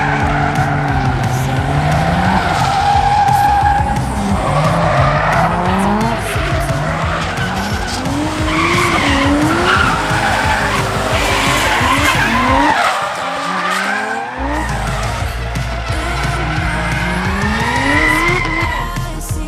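Drift car engines revving up and dropping back over and over, with tyres skidding as the cars slide.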